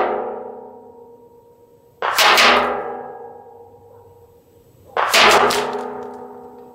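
.22LR bullets striking a target of plywood backed by a metal barrel: two sharp hits about three seconds apart. After each, the metal barrel rings with several steady pitches that die away over a couple of seconds. At the start, the ringing from an earlier hit is still fading.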